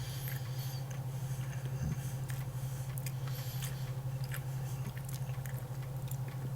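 Someone chewing a dense, firm meat snack stick, with faint scattered mouth clicks, over a steady low hum.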